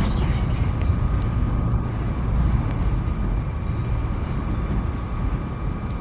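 Freight train's last open wagons rolling away on the rails: a steady low rumble that fades slightly toward the end, with a thin steady high tone running through it.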